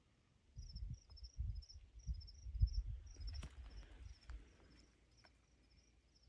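Crickets chirping, a few short high chirps a second, with low rumbling thumps on the microphone for the first few seconds as the phone is moved.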